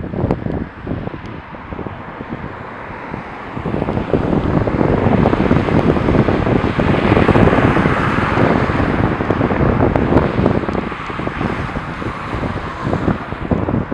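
Wind buffeting the microphone: a gusty rushing rumble that grows stronger about four seconds in and eases somewhat near the end.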